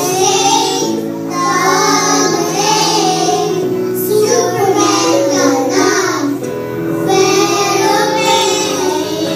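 A group of young children singing together into stage microphones, over a steady musical accompaniment.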